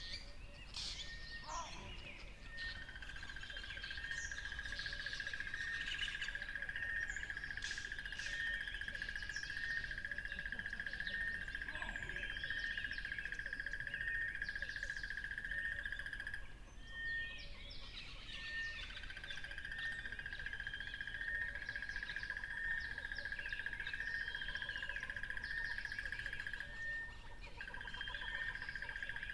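Many birds chirping and singing, with quick scattered calls, over a steady high-pitched trill that runs for long stretches. The trill twice gives way to short, evenly spaced peeps about once a second before resuming.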